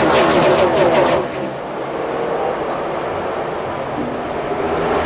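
A pack of NASCAR stock cars' V8 engines running at racing speed, many engines at once, their pitches falling as the cars go by. A little over a second in it drops to a slightly quieter, steadier engine noise.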